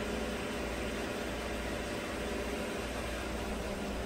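GM 5.3-litre V8 idling steadily at about 550 rpm during a scan-tool fuel injector balance test, with a constant hiss over the engine hum.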